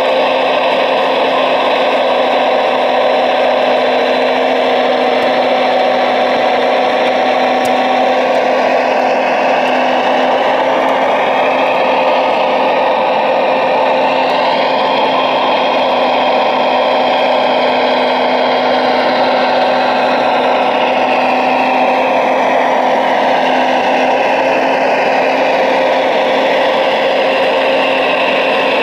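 Radio-controlled scale Liebherr 970 hydraulic excavator running: a steady motor hum and hydraulic pump whir. Midway, a whine rises and falls in pitch as the boom and harvester head move.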